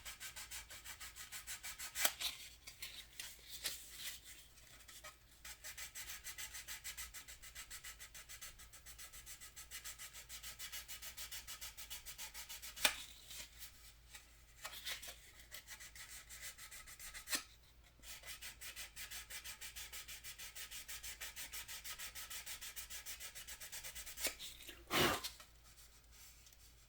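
Dry hand-sanding of water-soluble filler putty on a plastic scale-model car body: quick back-and-forth scratchy strokes, about four a second, broken by a few short pauses, with a sharp knock near the end.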